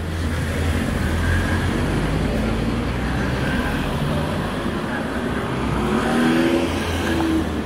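Road traffic: a car running along the street over a steady low rumble.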